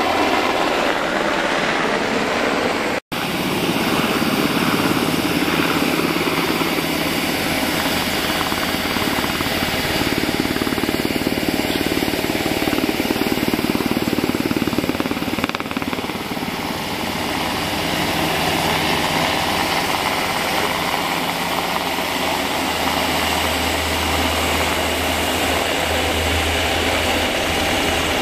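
UH-60J Black Hawk helicopter flying past, its twin turboshaft engines and four-blade main rotor making a steady, loud chopping roar. The sound cuts out for a split second about three seconds in, and a deeper low rumble builds near the end as the helicopter turns toward the listener.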